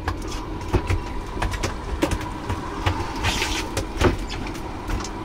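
Spinning rods and reels being handled on a boat: scattered clicks and knocks over a steady low hum, with a brief hiss a little past three seconds in.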